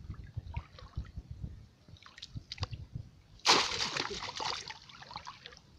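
Shallow muddy water splashing and sloshing as a bamboo plunge-basket fish trap is worked down into a flooded field by hand. Light drips and small splashes, then a sudden loud splash about three and a half seconds in that dies away over a second or so.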